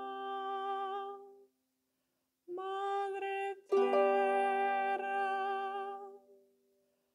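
Celtic harp: plucked notes ringing out and fading away, then a brief silence, then two more chords about a second apart, the second one louder, both ringing and dying away.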